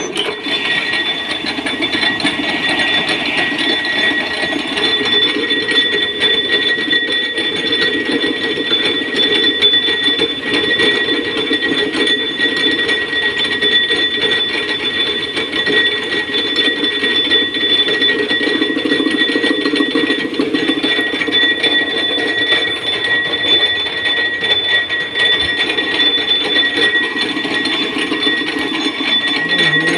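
Mechanical power press running continuously with an automatic-feed washer die, punching the washer and its centre hole in one stroke from steel strip, with rapid, steady strokes. A steady high whine runs over the stamping.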